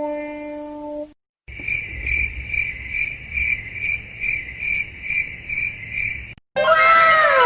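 Cricket chirping sound effect, the classic 'awkward silence' gag: a steady, even chirp about two and a half times a second. A fading guitar chord comes just before it, and near the end a different effect begins with a run of falling tones.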